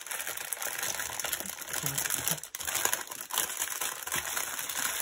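Plastic packaging crinkling and rustling as it is handled, a continuous crackle of small crisp clicks.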